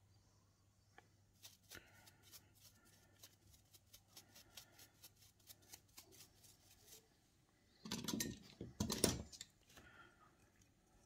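Small hard brush scrubbing over a carved tooth model, a quick run of short scratchy strokes, several a second, sweeping carving shavings off its surfaces. About eight seconds in comes a louder noisy burst lasting a second or so.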